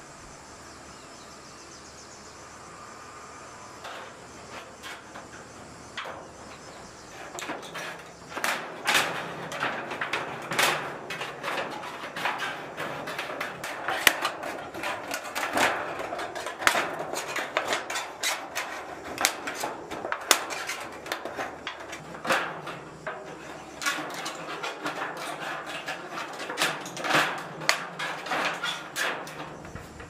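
Irregular knocks, taps and rattles of work on corrugated metal roofing sheets. They begin about seven seconds in, after a quiet start.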